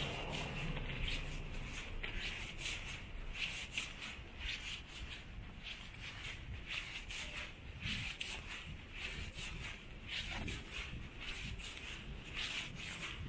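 Footsteps of a person walking at about two steps a second, each step a short crisp scuff, over a steady low rumble.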